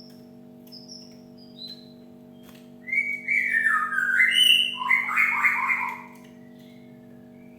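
Cinereous tit calling: a few short, thin, high notes, then about three seconds in a loud run of sliding whistled phrases that stops about six seconds in. A steady low hum runs underneath.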